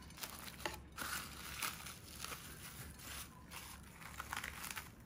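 Plastic cling wrap crinkling and rustling in irregular bursts as hands stretch and press it around a platter.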